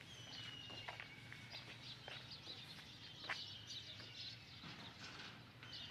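Faint birdsong outdoors: a few short, high, slightly falling whistled bird calls, over scattered soft steps on rubble and a low steady hum.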